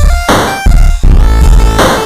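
Loud electronic dance music in a dubstep style: heavy pulsing bass, punchy drum hits and stepping synth notes.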